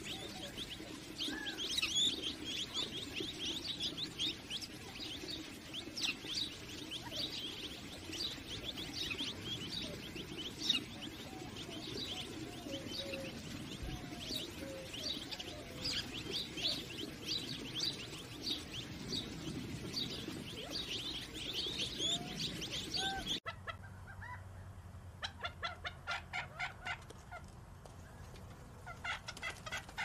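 Gambel's quail chicks peeping continuously, many short high thin notes overlapping, with a few soft low calls from the adults. After an abrupt change about 23 seconds in, an adult Gambel's quail gives two rapid runs of repeated calls.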